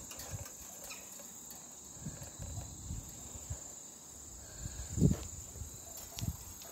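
Steady high-pitched chirring of crickets, with a few low bumps, the loudest about five seconds in.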